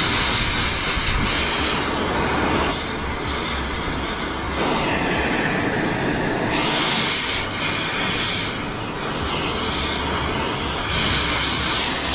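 Oxy-fuel torch flame hissing steadily as it melts through the steel wire of a flexible drain-cleaning shaft, fusing the strands so the cut end won't unravel. The hiss shifts in pitch a few times.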